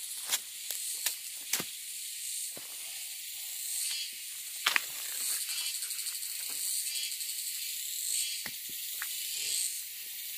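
Steady high-pitched insect buzzing that swells and fades in waves, with a few sharp clicks and snaps scattered through it.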